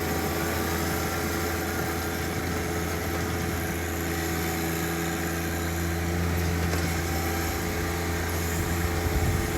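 Diesel tractor engine running steadily: a constant low hum with a few steady higher tones over it, rising a little near the end.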